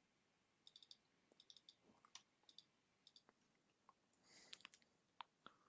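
Faint, irregular clicking of a computer keyboard and mouse.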